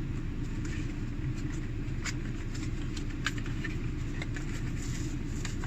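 Packaging of an emergency tool set being opened and handled: scattered light clicks and rustles over a steady low rumble.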